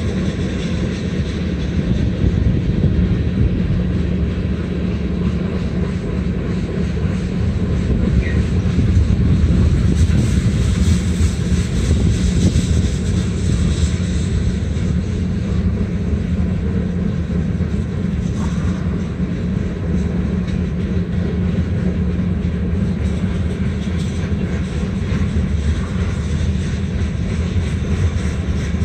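Freight train cars rolling past: a loud, steady rumble of steel wheels on rail that holds even throughout.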